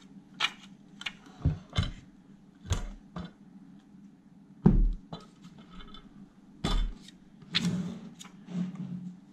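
Handling noise as a UPS's pack of two lead-acid batteries is slid out of the unit and set down: a string of knocks and clicks of plastic battery cases and metal, with one heavier thump about halfway through.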